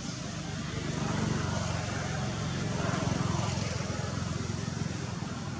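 Low, steady engine hum of a motor vehicle running, a little louder around the middle, over a background hiss.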